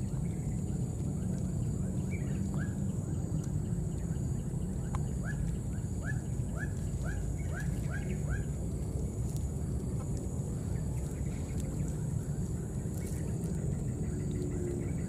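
A run of short, high animal calls, about two a second, from about five to eight and a half seconds in, over a steady low outdoor rumble.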